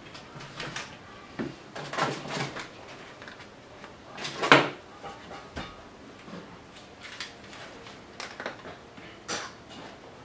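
Scattered handling noises from a cordless chainsaw on a wooden table: short plastic clicks, knocks and rattles as its bar and cover are worked on, the loudest knock about halfway through.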